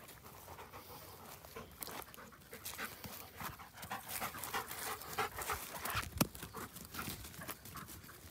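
A dog panting close by: quick, repeated breaths, busiest in the middle. A single sharp knock comes about six seconds in.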